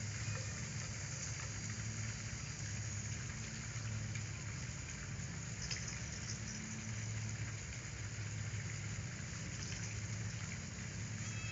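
Steady background hiss with a low hum underneath and a few faint ticks.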